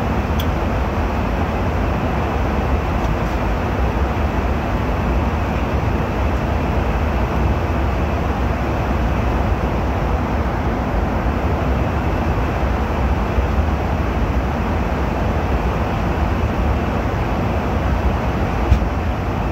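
Steady airliner cabin noise in flight, the engines and rushing air heard from inside the cabin, heaviest in the deep low end. One small click near the end.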